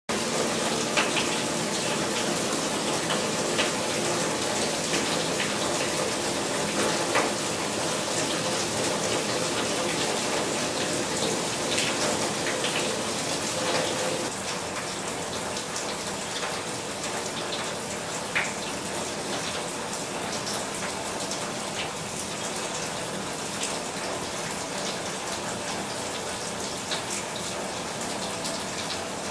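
Rainwater running and splashing down a cup-style rain chain in a rain shower, with steady rain and scattered drips; a little quieter from about halfway through.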